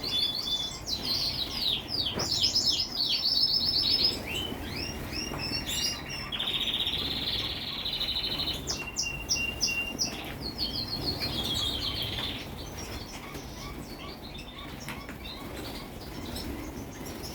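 A group of small birds chirping and trilling in fast overlapping series, busiest in the first few seconds and thinning out toward the end, with wing flutters among the calls.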